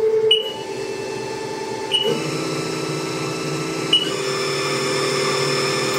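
Haas TM-1P toolroom mill's spindle running and being stepped up in speed from 600 RPM: a steady whine of several tones that shifts higher in steps. Three short high beeps from the control keypad, about two seconds apart, each come just before a step in the whine.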